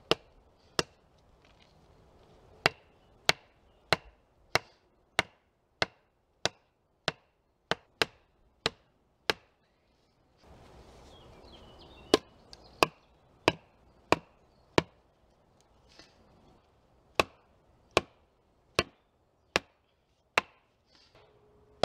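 A wooden stake being driven into the ground by repeated wood-on-wood blows: sharp knocks about one and a half a second, in two runs with a pause of a few seconds in the middle.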